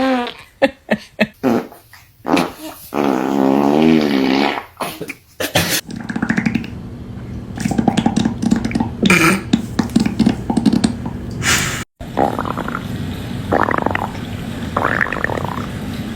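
A run of fart sounds of different kinds: a string of short sharp pops, then a long wavering pitched squeak, then long buzzy, rasping farts that stop and start.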